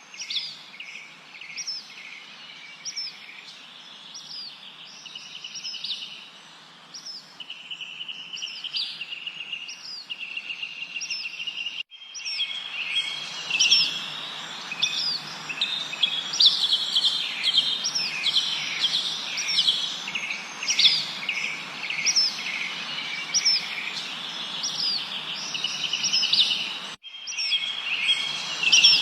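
Many songbirds chirping and trilling together: quick, high, down-slurred chirps repeated over and over, mixed with buzzy trills, over a steady background hiss. The sound cuts out for an instant about twelve seconds in and again near the end, and the chirping is busier and louder after the first break.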